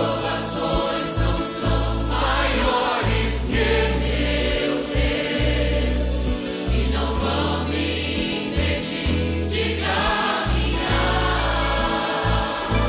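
Choir singing Christian worship music over instrumental accompaniment, with steady sustained bass notes underneath.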